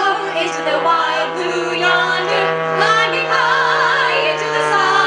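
Music with singing: a voice holding wavering notes over sustained chords.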